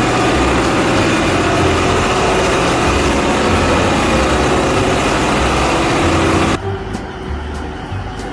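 Heavy truck engine running loudly and steadily, then cutting off suddenly about six and a half seconds in.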